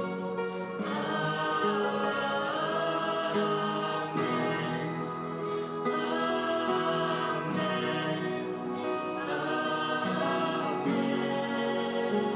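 Background music: a choir singing, with long held notes that change every second or two.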